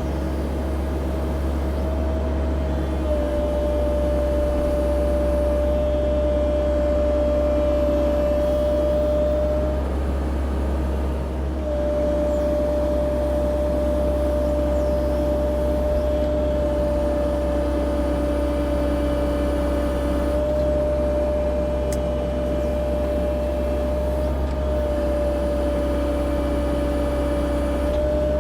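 CAT 304 E2 mini excavator running steadily under work, a deep engine drone with a steady whine over it.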